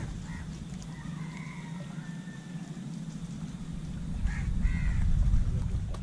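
Low steady rumble of wind on the microphone, with a few faint bird calls: one drawn out about a second in and two short ones near the end.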